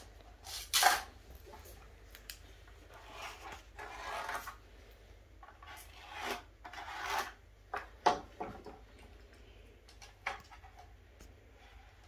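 A pencil scratching marks onto wooden boards while a folding ruler slides and knocks against the wood: several short scratching strokes, with a few sharp clicks in between.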